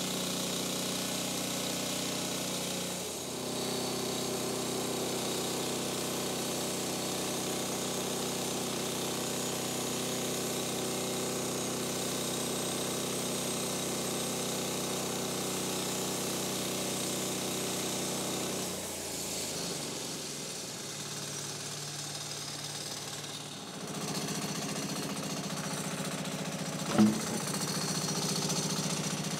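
Portable bandsaw sawmill running steadily as its blade cuts lengthways through a timber, resawing it into boards. The note changes about 3 seconds in and drops about two-thirds of the way through as the cut ends. Near the end comes one sharp knock, the loudest sound.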